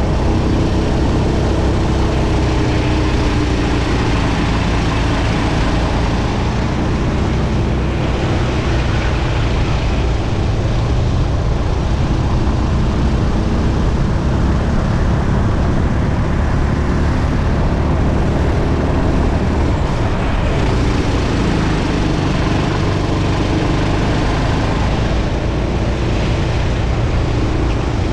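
Go-kart engine running hard on a lap, heard onboard: its pitch drops in the first few seconds as the kart slows into a corner and climbs again about two-thirds of the way through as it accelerates out.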